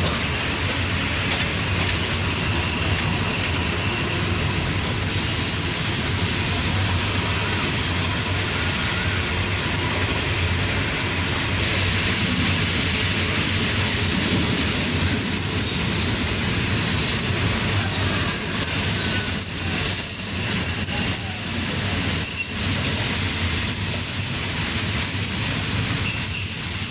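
Passenger train running along the line with a steady rumble and rattle. About halfway through, a high thin wheel squeal starts and keeps coming and going, and a few sharp knocks sound near the end.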